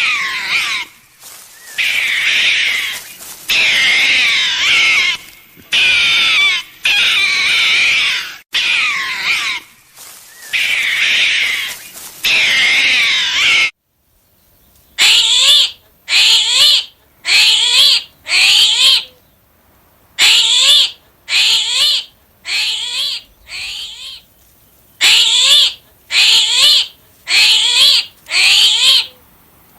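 Animal calls: long, high, wavering cries about a second each, then after a cut about halfway, a steady series of shorter calls a little more than one a second.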